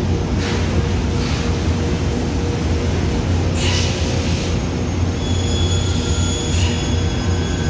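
Doosan CNC vertical mill running with a steady, constant low hum. Short hissing bursts come and go over it, and a thin high whine joins about five seconds in.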